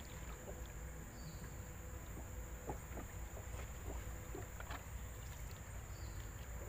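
Outdoor ambience: a steady low rumble, a continuous high-pitched insect drone and a few faint ticks, with two brief high chirps.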